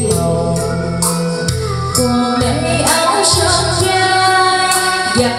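A woman singing a Vietnamese ballad into a microphone over a karaoke backing track with a steady beat, both played through a mini portable karaoke speaker. She holds a long note in the second half.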